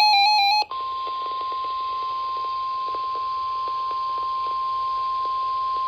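NOAA Weather Radio emergency alert: a brief warbling burst of alternating data tones ends, then the single steady alarm tone, about 1050 Hz, sounds, heard over radio hiss with faint crackles. The alarm tone announces a tornado watch.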